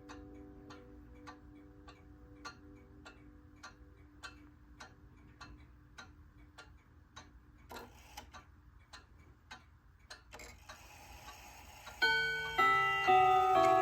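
Junghans/HAC pendulum wall clock ticking steadily, a little under two ticks a second, with the last notes of a chime dying away at first and a couple of louder clicks from the movement in the middle. About two seconds before the end, the hammers start striking the long steel chime rods: the chime melody begins, much louder than the ticking.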